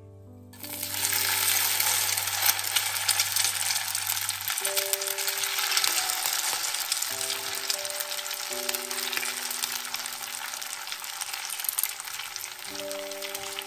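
Grated raw potato sizzling and crackling in hot sunflower oil in a frying pan. The sizzle starts suddenly about half a second in as the potato goes into the pan and is loudest in the first few seconds. Soft background music plays underneath.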